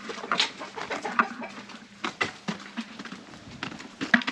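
Backyard chickens clucking: a scatter of short, irregular calls, several a second.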